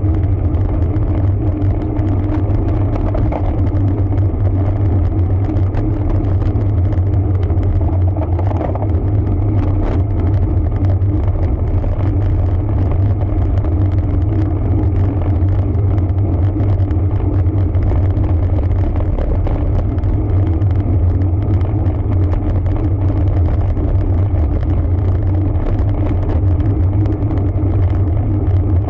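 Steady low rumble of a road bike being ridden: tyre and road noise mixed with wind, running evenly without a break.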